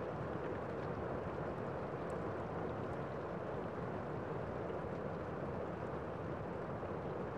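Steady rain falling on a window, an even, dull rushing without separate drop ticks.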